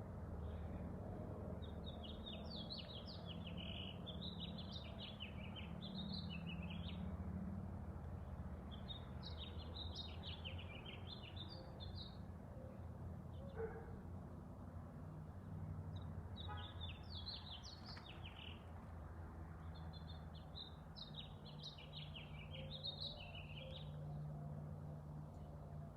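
A songbird singing long, jumbled, warbling phrases of a few seconds each, with short pauses between them, over a steady low background rumble.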